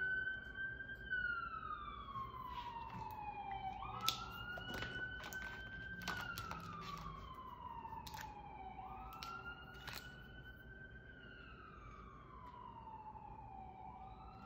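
Emergency-vehicle siren in a slow wail: each cycle rises quickly, holds briefly, then slides down over about three seconds, repeating roughly every five seconds and gradually fading. A few light clicks sound over it.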